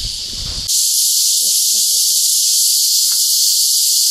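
Loud, steady, high-pitched chorus of insects in tropical forest, a continuous shrill hiss that takes over abruptly less than a second in.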